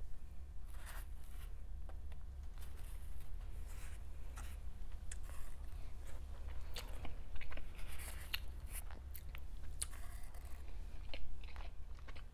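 Close-up eating sounds: a person chewing food, with irregular small crunches and clicks, over a steady low hum.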